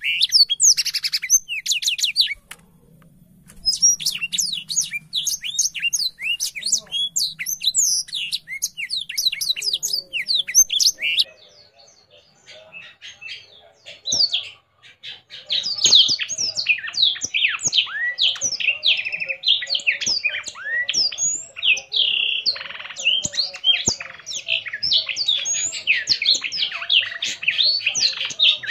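A blackshot songbird singing in long runs of rapid, high chirps and trills, with a short break about three seconds in and a longer lull roughly midway before it resumes.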